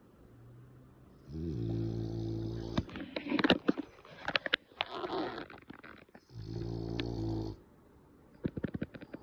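French bulldog snoring in her sleep: two long, low, steady snores, each about a second and a half long, with a stretch of irregular snorts and clicks between them and a few more clicks near the end.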